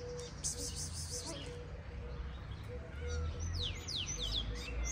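Small birds chirping, with a run of quick, steeply falling whistled notes in the second half, over a low steady rumble.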